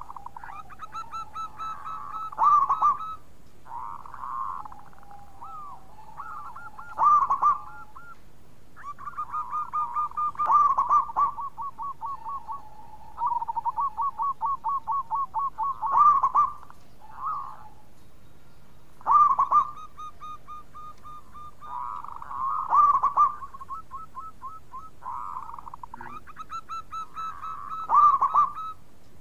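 Zebra dove (perkutut) cooing: runs of quick, repeated staccato coo notes, each run ending in a louder drawn-out coo. The song repeats every four to five seconds.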